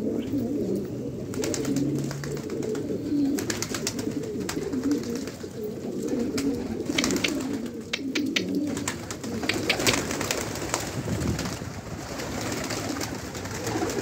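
A flock of domestic fighter pigeons cooing together without pause. Several clusters of sharp flapping and clapping come from wings as birds take off from and land on the roof edge.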